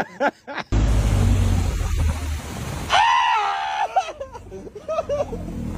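A person's short, high scream of fright about three seconds in, followed by broken, excited voices. Before it comes a loud, even, noisy rumble.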